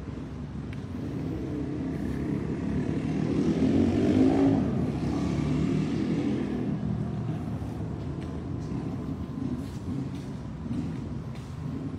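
A road vehicle passing: a low engine and road rumble that swells to its loudest about four seconds in and fades away, over steady background traffic noise.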